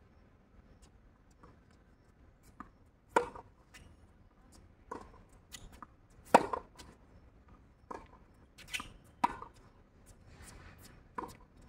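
Tennis rally: rackets striking the ball in sharp pops about every one and a half seconds. The loudest pops, about every three seconds, are the near player's strokes, and the fainter ones between them come from the far end of the court.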